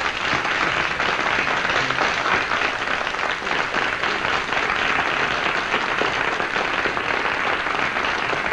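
Studio audience applauding steadily: sustained clapping from many hands.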